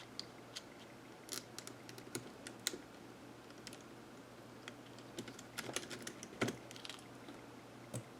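Irregular light clicks and taps of a TI-83 Plus graphing calculator's plastic case and parts being handled, with small clusters of clicks about a second in, around the middle and a single one near the end.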